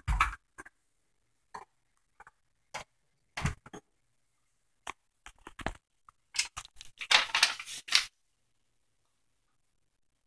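Scattered clicks and knocks of things being handled on a kitchen counter, then a dense crinkling from about six and a half to eight seconds in as a plastic pouch of coconut sugar is picked up.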